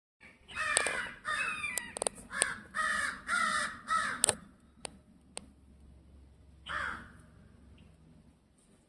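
Crows cawing harshly in a fast run of about seven calls, then one more call near the end; agitated calls of crows mobbing a hawk. A few sharp clicks sound among the calls.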